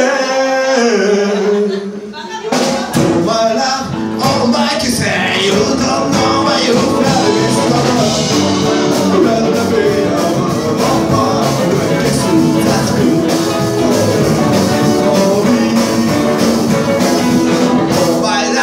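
Live rock and roll band playing: upright double bass, electric guitar and drums, with a singer. After a brief held note, the full band comes in about two and a half seconds in and keeps playing steadily.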